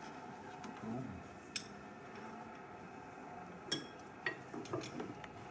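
A socket wrench clinking against metal as bolts under a truck are worked loose: a few separate quiet metallic clinks, the loudest a short ringing one a little past halfway.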